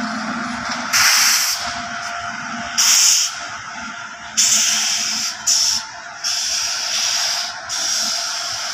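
Compressed air hissing from a freight train's brake system in five sudden bursts, each lasting from about half a second to a second and a half, over a faint steady hum.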